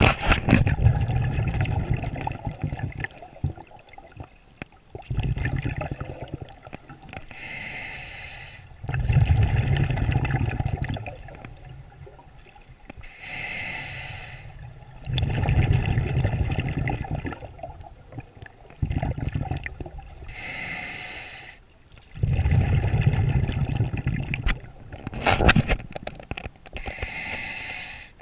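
Scuba diver breathing through a regulator underwater: a hissing inhalation about every six to seven seconds, each followed by a longer, louder rush of exhaled bubbles.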